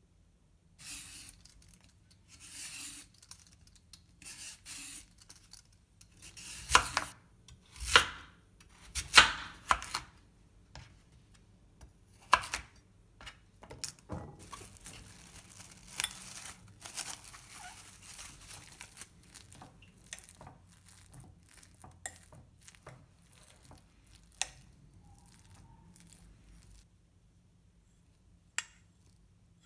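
Kitchen food-preparation noises from raw sweet potato being cut with a knife on a wooden chopping board: a run of scraping, tearing sounds, loudest from about seven to ten seconds in, then quieter rubbing.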